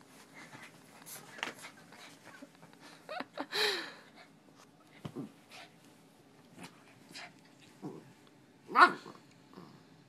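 Small white dog making short barks and whimpers while play-fighting, in scattered bursts with the loudest near the end.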